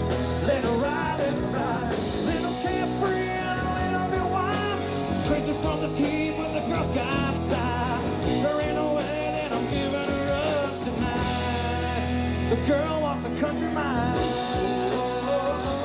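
A live country-rock band playing a song: electric guitars over bass and drums.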